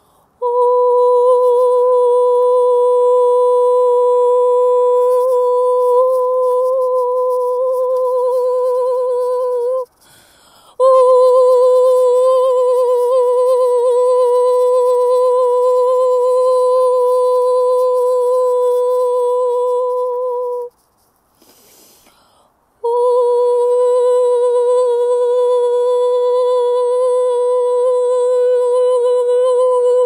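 A person's voice humming long sustained notes on one steady pitch with a slight wobble. It breaks off twice, briefly, so that three long held tones are heard.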